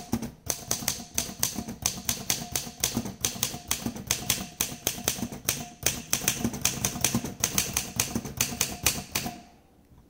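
Torpedo 18 manual portable typewriter being typed on: a quick, uneven run of keystrokes, type bars striking the platen about four to five times a second. The typing stops a little after nine seconds in.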